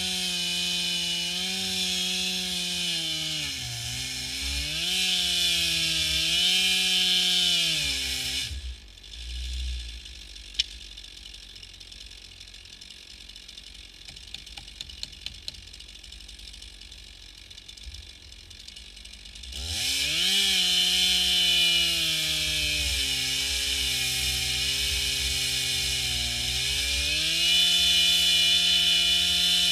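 Two-stroke chainsaw on an Alaskan chainsaw mill ripping a log lengthwise at high revs, its pitch sagging and recovering as it bogs in the cut. Its sound drops away for about eleven seconds in the middle, then comes back rising in pitch and runs on under load.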